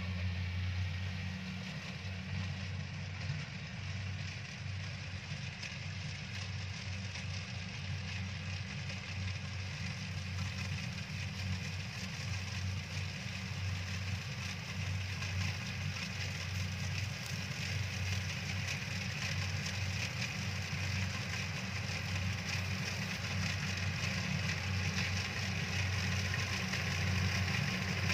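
Kubota DC-70 combine harvester's diesel engine running steadily as it cuts rice, growing gradually louder as the machine comes closer.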